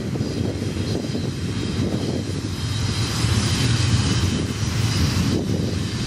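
Double-stack container cars of a BNSF freight train rolling past, a steady rumble of steel wheels on rail with a rushing noise above it.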